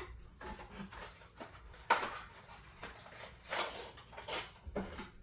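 Handling noises from a jar of red chili paste and a utensil on a kitchen counter: a sharp click about two seconds in, then a few softer knocks and scrapes.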